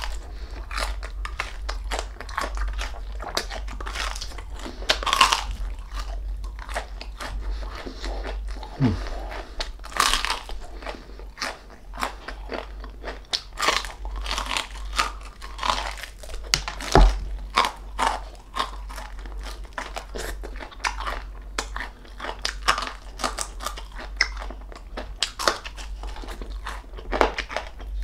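Close-up crunching and chewing of crispy deep-fried pork knuckle skin: irregular sharp bites and crunches with wet chewing in between.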